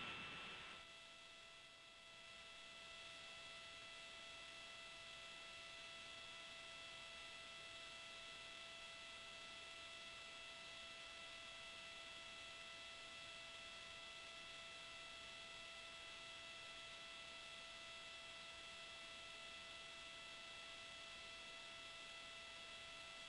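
Near silence: a faint steady electrical hum of several high tones over hiss in the broadcast audio feed.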